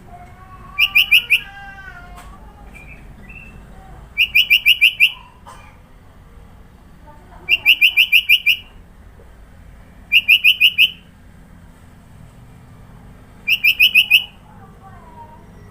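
Sooty-headed bulbul (kutilang) singing five short bursts of rapid, evenly repeated high notes, a few seconds apart.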